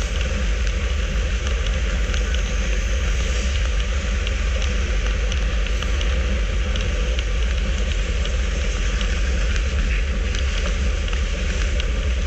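Wind rushing and buffeting over the microphone of a bike-mounted action camera at about 40 km/h, with road-bike tyres running on asphalt underneath. Scattered light ticks run through it.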